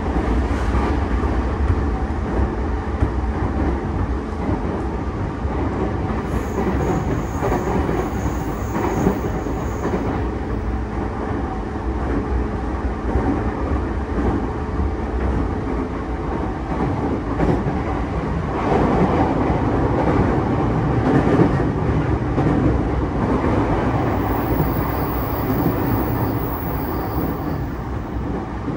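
JR East E233 series 5000 electric train running at speed, heard from inside the passenger car: a steady rumble of wheels on rail with a faint hum that stops a little past halfway, and a few knocks. The rumble grows louder for several seconds about two-thirds of the way through.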